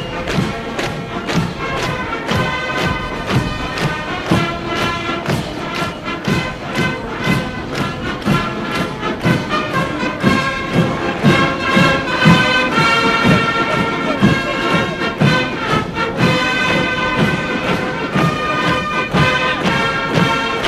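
Military band playing a march, with a regular thudding beat about twice a second.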